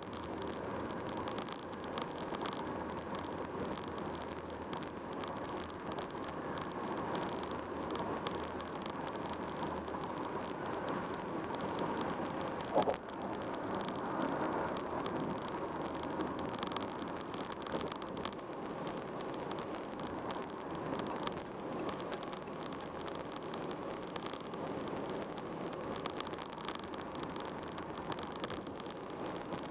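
Steady road and tyre noise of a car driving at highway speed, with one short thump about halfway through.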